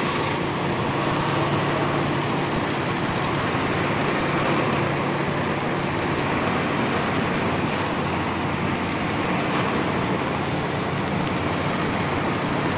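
Steady drone of running machinery, with a low hum under a broad rushing noise.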